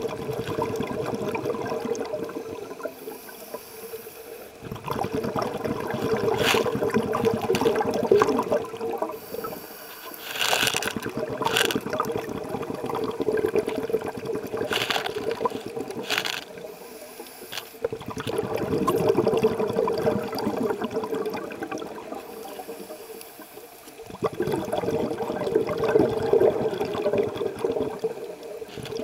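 Scuba regulator breathing, heard underwater: bubbly, gurgling exhalations that swell for a few seconds and die away about six times, with short hissing breaths between.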